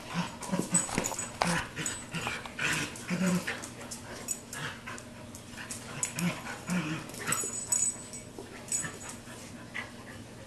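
Two dogs play-fighting, a German Shepherd/Chow mix and an American Bulldog/Pointer mix: short growls and whimpery play noises in quick bursts, with claws clicking and scrabbling on a tile floor.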